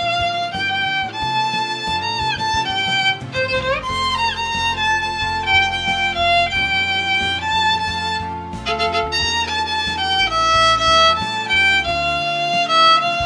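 Violin playing a pop-song melody with the bow, changing notes steadily with a few short slides between notes, over a backing track whose bass comes in about three and a half seconds in.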